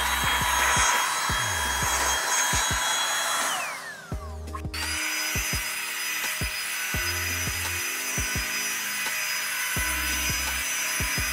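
A 500 W handheld electric air blower running with a steady high whine. About three and a half seconds in its pitch slides down as it winds off, and about a second later it is running again at full speed. Background music with a beat plays underneath.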